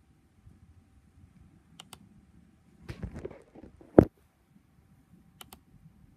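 Two sharp double clicks a few seconds apart from working a laptop while switching browser tabs. Between them comes a brief rustle of handling about three seconds in, then a single loud thump, the loudest sound.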